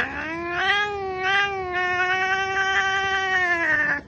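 A domestic cat giving one long drawn-out yowl that rises at the start, holds steady, and drops at the end.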